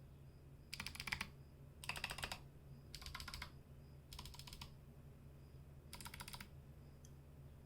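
Typing on a Drop ALT mechanical keyboard with clicky Kailh Box Pink switches and MT3-profile PBT keycaps: five short bursts of rapid keystrokes, each about half a second long, with pauses between.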